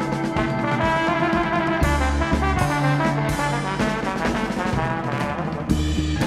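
Instrumental jazz recording: a brass section playing held chords over bass and drums, with the arrangement shifting about a second before the end.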